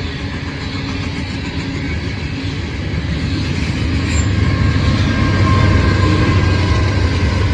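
Coal train's hopper cars rolling past on the rails, then the rear Norfolk Southern diesel locomotives come by about halfway through, their engines adding a deep rumble that builds louder toward the end.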